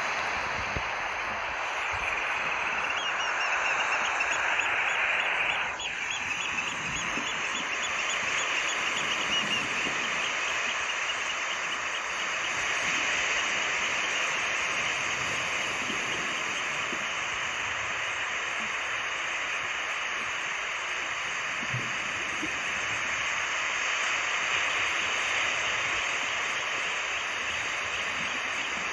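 Steady rushing of flowing water with birds calling over it. There is a run of faint high calls in the first third and a single falling call about six seconds in.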